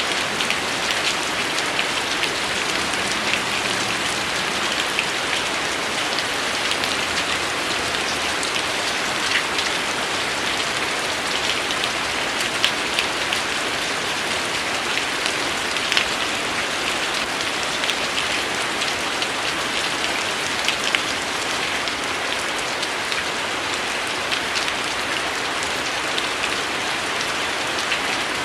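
Steady rain falling on a surface, a dense even hiss scattered with the sharp ticks of individual drops hitting nearby.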